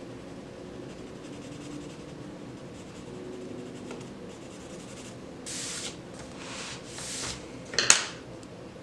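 Colored pencil shading on coloring-book paper: soft, steady scratching, then a few louder back-and-forth strokes. A sharp click near the end.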